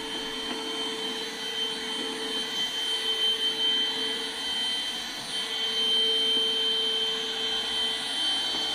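Vacuum cleaner running steadily, sucking dust off a shelf, with a steady high whine over its rushing noise.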